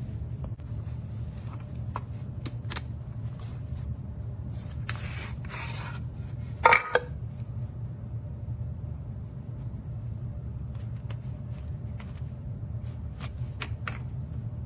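Small hard objects being handled: scattered clicks, rubs and a short scrape, with one loud sharp clack about seven seconds in, over a steady low hum.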